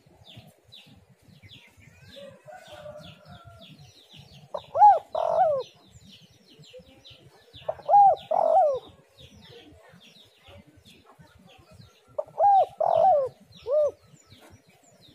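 Spotted dove (tekukur) cooing in three short phrases a few seconds apart, each of two or three hooting notes. A faint, fast, high ticking runs underneath throughout.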